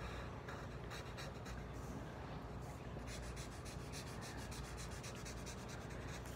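A writing utensil scratching quickly back and forth on paper. The strokes are faint and come thick and fast from about three seconds in.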